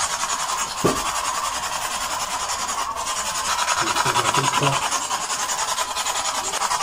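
Spirit box radio scanning through stations: a steady hiss of static that pulses rapidly as it sweeps, with a sharp click about a second in.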